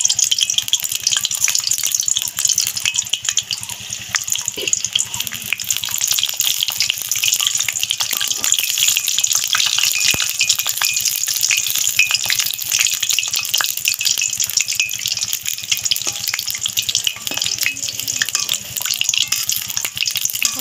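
Papad-wrapped samosas deep-frying in hot oil in a kadai, just added: a dense, steady sizzle full of fine crackling.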